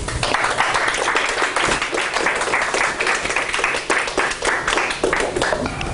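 Audience applauding, many hands clapping together. It starts just after the moment begins and thins out toward the end.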